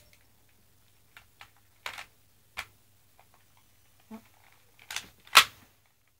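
BB gun being handled: a series of irregular sharp clicks and clacks, the loudest about five and a half seconds in.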